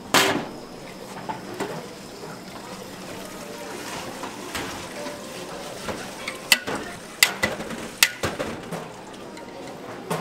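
Water running in a bakery kitchen, with a hard knock at the very start and a quick run of sharp clinks about six to eight seconds in.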